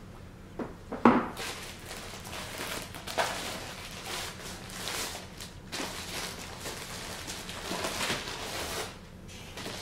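A couple of sharp knocks about a second in, then an uneven rustling and crinkling of a cloth sleeve and clear plastic wrapping as a laptop is handled and lifted out of its cardboard box.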